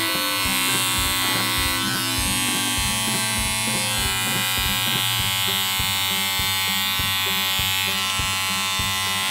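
Cordless electric pet hair clipper running with a steady buzz as it trims the hair on a Yorkshire Terrier puppy's ear.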